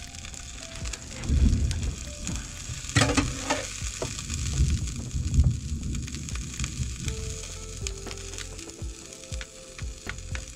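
Food sizzling in a hot pan and on an electric griddle, a steady hiss, with a few knocks and scrapes of a spatula as tortillas are handled.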